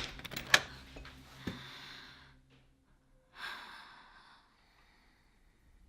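A few sharp knocks in the first second and a half, then a person's long breath out, a sigh, about three and a half seconds in.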